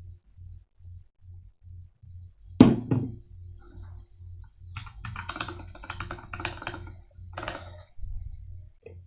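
Computer keyboard typing in a rapid run of clicks, after a single loud thump, over a low, evenly repeating pulse of about three beats a second.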